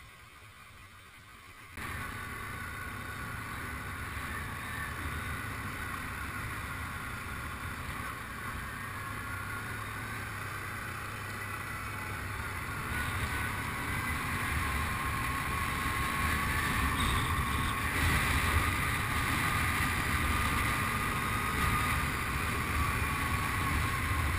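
Quad bike (ATV) engine running under way on a dirt track, starting suddenly about two seconds in and getting louder in the second half as the engine pitch climbs.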